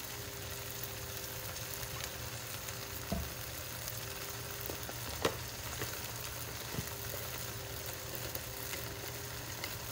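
Sliced beef frying in a pan of soy, oyster sauce and sesame oil, a steady sizzle with a few sharp clicks.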